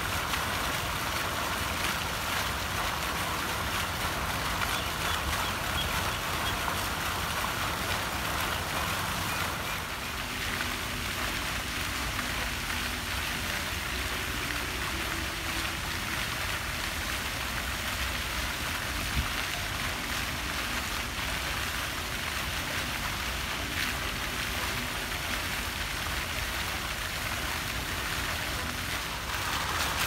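Small fountain jets splashing into a pond: a steady rush of falling water, changing slightly in tone about ten seconds in.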